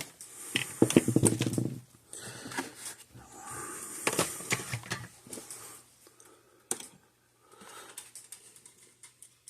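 Handling noise on a workbench: a run of light clicks, taps and rustles of small plastic parts and wires being handled, in irregular bursts with short pauses.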